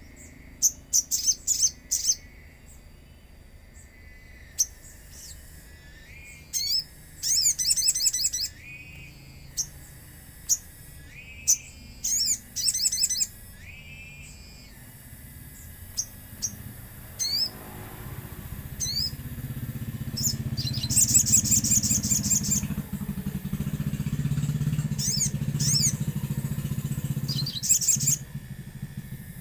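Little spiderhunter (sogon) calling: sharp high chirps and quick rattling trills in repeated bursts. From about halfway a low engine hum builds up underneath and stays to near the end.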